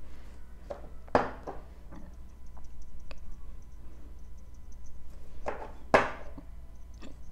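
Handling noise of small nail-product bottles and an applicator brush on a work table: a sharp knock about a second in, a cluster of knocks and clicks around six seconds in and another near the end, over a faint steady hum.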